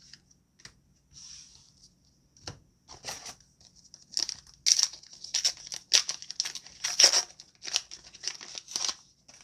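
A foil trading-card booster pack wrapper being torn open and crinkled in the hands, a string of irregular crackles that grows busier and louder after about three seconds.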